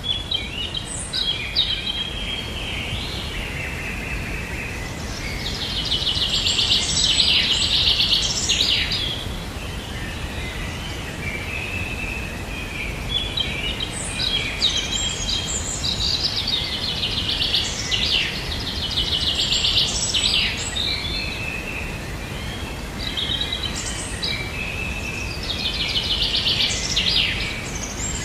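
Songbirds singing, with busy song phrases and fast trills that swell to their loudest three times, over steady low background noise.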